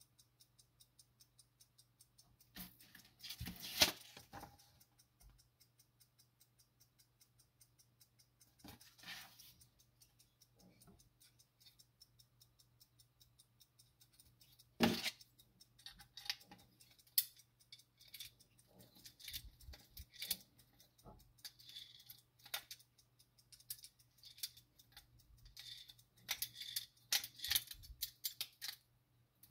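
Platform escapement of a Soviet marine wall clock movement ticking steadily, about five ticks a second. Irregular clicks and rattles of the metal movement being handled break in now and then, with a sharp knock about halfway and a busier stretch near the end.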